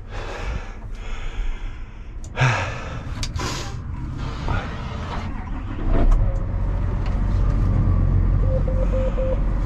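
John Deere 7R tractor's six-cylinder diesel heard from inside the cab: a few knocks and clicks, then about six seconds in the cold engine starts and settles into a steady low idle. A few short beeps sound near the end.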